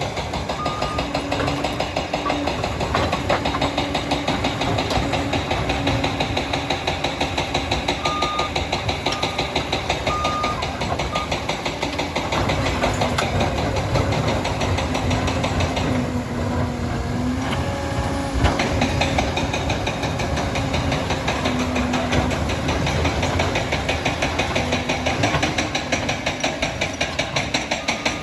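Liebherr PR 746 crawler dozer's diesel engine running steadily with a dense rattle. Its reverse alarm beeps about three times right at the start and again about a third of the way in, roughly a second apart.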